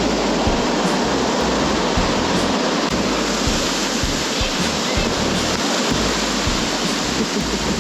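Big storm-swell ocean waves breaking, with surging water rushing in a loud, steady wash of surf.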